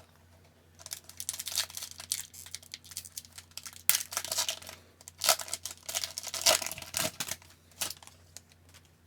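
Foil hockey card pack wrapper being torn open and crinkled, in irregular crackling bursts for several seconds.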